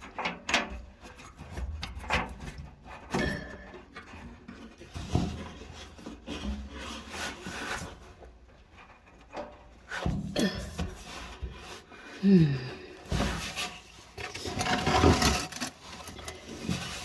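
Irregular scraping, rubbing and knocking as the drive belt is pulled and worked off the drum and pulley of a Roper electric dryer, with a short falling squeak a little past the middle and a longer scrape near the end.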